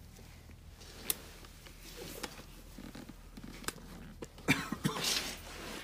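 Scattered clicks and knocks of handling, with a short cluster of louder knocks and a rustle about four and a half seconds in.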